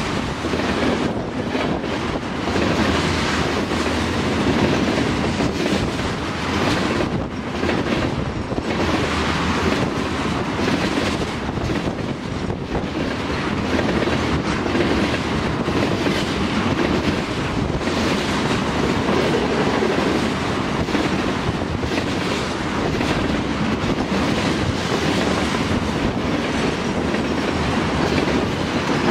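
Railroad tank cars of a freight train rolling past at close range: steady wheel-on-rail noise with repeated clacks of the wheels.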